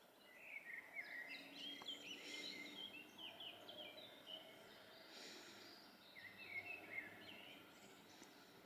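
Faint songbird song: rapid chirping and twittering phrases in two bouts, the second shorter, over quiet outdoor background noise.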